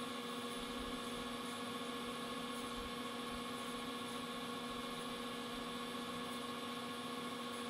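Steady hum of a running metal lathe, with a few constant tones and no change in pitch or level.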